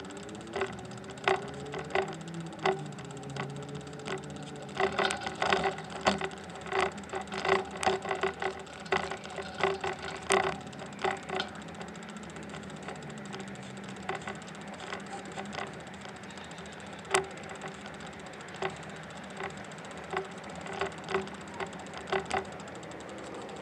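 Walking footsteps on a concrete path, each step giving a sharp click or knock about every two-thirds of a second, thinning out after the first half, over a steady background hum.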